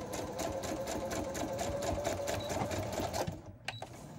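Electric sewing machine stitching through a paper page: the motor runs steadily with a rapid, even patter of needle strokes, then stops a little after three seconds in.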